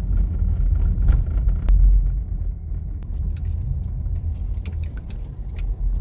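Car driving slowly along a village back road, heard from inside: a steady low rumble of engine and tyres with scattered small clicks and knocks.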